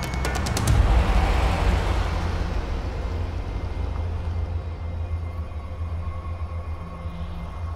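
A car driving past, its engine and tyre noise swelling about a second in and then slowly fading, over a steady low rumble.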